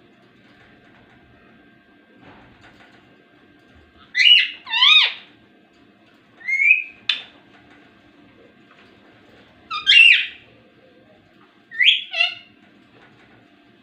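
Ringneck parakeet giving short, high-pitched calls, mostly in quick pairs, four bursts spread over about eight seconds.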